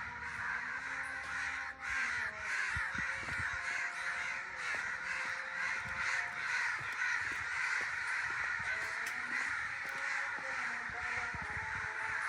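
A flock of crows cawing continuously, many calls overlapping into a steady clamour.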